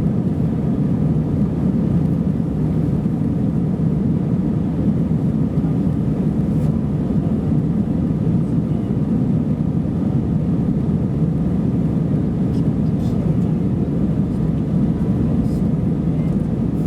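Steady cabin noise of an Airbus A320-214 airliner heard from a rear seat: the deep, even rumble of its CFM56 engines and the airflow, holding level with no change.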